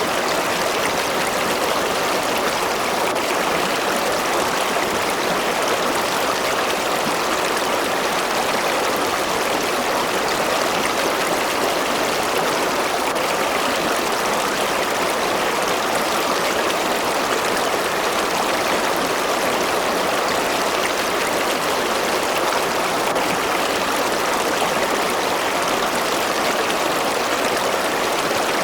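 River water flowing steadily over rocks: a continuous, even rush of a stream.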